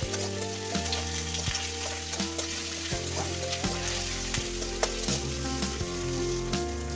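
Sliced onions, bay leaves and ginger-garlic paste sizzling in hot oil in a metal kadai, stirred with a metal spatula that scrapes and clicks against the pan at irregular intervals.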